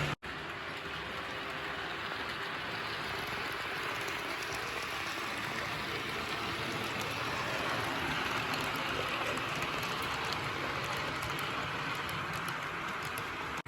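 HO scale brass steam locomotive model running with its train on the track, a steady rolling whir of motor, gearing and wheels on the rails. There is a brief dropout a moment in.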